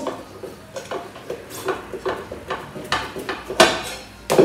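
A Honda Dio scooter wheel and tyre being worked by hand to get the tyre off the rim without tools: a run of irregular knocks and clacks as the wheel is pushed and turned, the loudest about three and a half seconds in and again just before the end.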